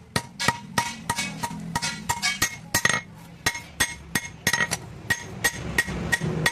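Blacksmith's hammer striking steel on an anvil while forging a sickle blade: sharp ringing clinks at about three blows a second, some lighter than others. A faint low hum comes and goes underneath.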